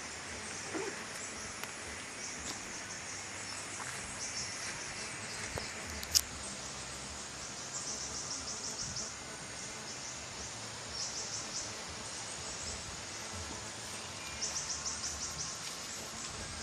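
Insects chirping outdoors in repeated short trains of rapid high pulses over a steady background hiss. A single sharp click comes about six seconds in.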